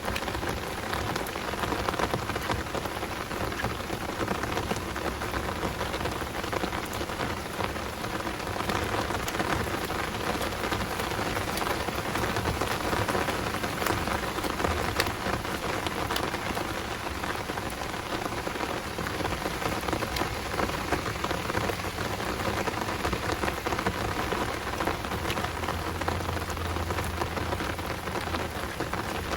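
Heavy rain falling steadily, with many close drops heard as fine ticks.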